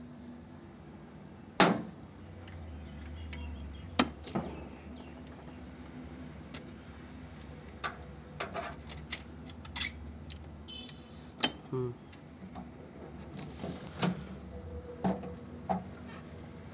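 Metal clinks and knocks from handling a copper pipe flaring tool, scattered and irregular, the loudest about a second and a half in, over a low steady hum.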